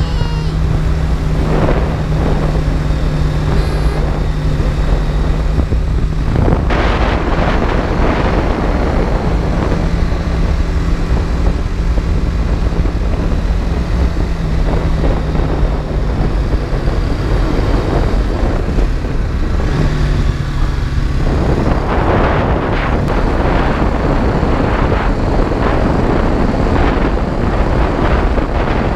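BMW G310GS motorcycle's single-cylinder engine running while riding at road speed, with wind rushing over the microphone. The engine note holds steady for stretches, then drops away and changes pitch a few times as the throttle and speed change through the curves.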